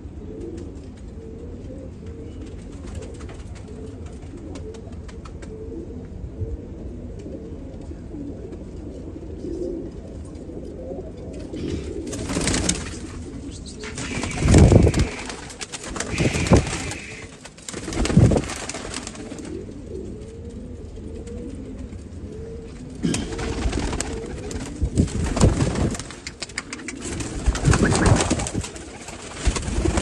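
Domestic pigeons cooing steadily, with loud bursts of wings flapping close by in the middle and again near the end.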